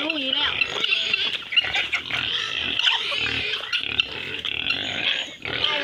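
Farm animals calling over one another in a dense, continuous clamour as they crowd around for feed.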